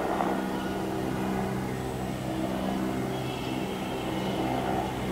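Mil Mi-17 helicopter's twin turboshaft engines and main rotor running steadily as it flies past overhead.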